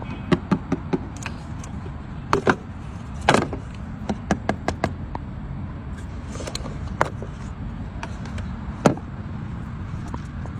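Irregular sharp clicks and taps, some in quick runs of three or four, over a steady low rumble.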